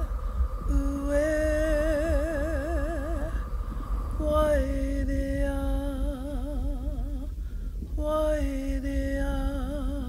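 A solo voice singing slow, long held notes with wide vibrato, in three phrases, each stepping down to a lower held note, over a steady low rumble.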